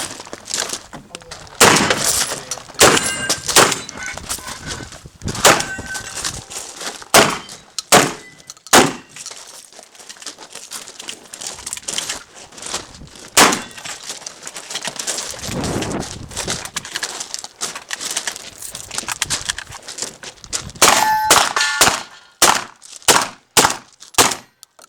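Shotgun fired through a practical-shooting stage with buckshot and birdshot: single shots and quick strings, with a quieter spell in the middle and a fast string near the end. Some shots are followed by steel targets ringing as they are hit.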